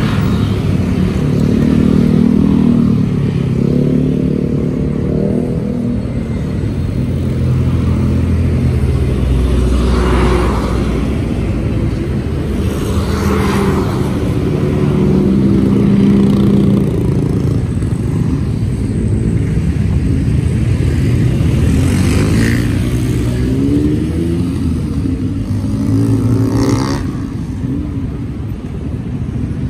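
City street traffic passing close by: motorcycle and car engines running and revving, their pitch rising and falling as they go past.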